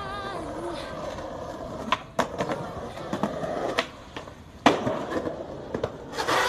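Skateboard wheels rolling on pavement, then several sharp clacks of the board striking the ground, the loudest about two-thirds of the way in, and a short noisy burst near the end.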